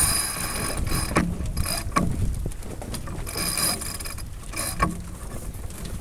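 Sailboat deck gear squealing in high bursts, one at the start and another midway, with a few sharp knocks, over a rush of wind and water.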